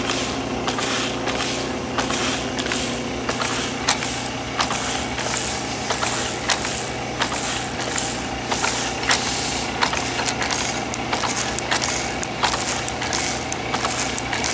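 Circular sock knitting machine running: a steady mechanical hum with rhythmic metallic clicking, about two to three clicks a second, as the latch needles ride through the cams.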